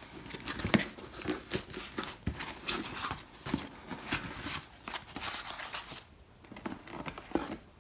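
Cardboard shipping box being unpacked by hand: flaps and white packing material rustling and crinkling, with many small knocks and scrapes, quieter in the last couple of seconds.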